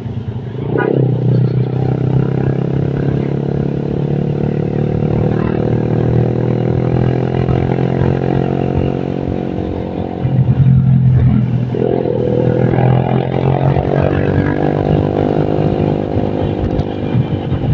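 Motorcycle engine running while riding. It holds a steady note that eases down slowly, dips briefly about ten seconds in, then picks up again as it accelerates.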